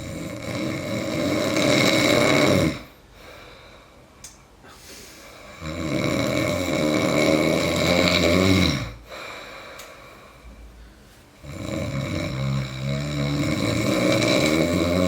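A sleeping person snoring loudly: three long snores of about three seconds each, with quieter breathing between them.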